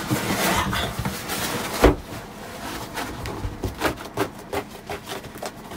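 A large sheet of black closed-cell foam insulation (ArmaFlex) being pushed and slid into place against a boat hull, rubbing and scraping on the surrounding frame. There is one solid knock just under two seconds in, then scattered light taps as the sheet is pressed home.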